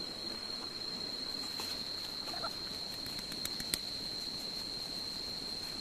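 Steady high-pitched insect drone, with a few faint clicks, the sharpest a little past halfway.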